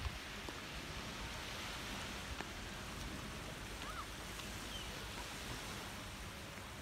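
Steady wash of wind and distant sea surf at a beach, with a faint short chirp about four seconds in.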